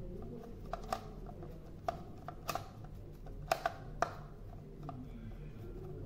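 Screwdriver backing a small screw out of the metal back plate of a ZKTeco ML100 smart lock's outdoor unit: scattered light clicks and ticks of metal on metal, the sharpest coming in a cluster a little past halfway.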